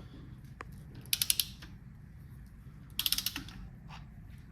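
Socket ratchet clicking in two short runs of rapid clicks, about a second in and again about three seconds in, as it is swung back between pulls on a cylinder head bolt of a KA24DE engine.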